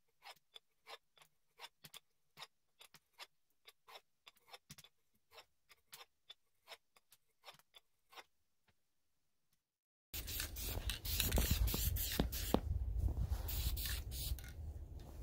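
Handheld axe sharpener scraped along a hatchet's steel edge in short, quick strokes, about three a second. About ten seconds in it gives way to a loud, steady hiss of an aerosol spray-paint can, with a deep rumble underneath.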